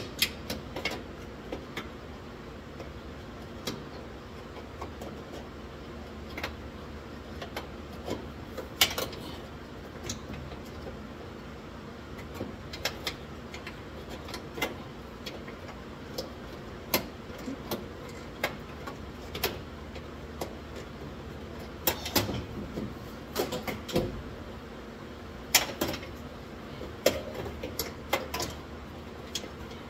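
Irregular metal clicks and knocks of a wrench working a stubborn car door bolt that will not come loose, over a steady low hum.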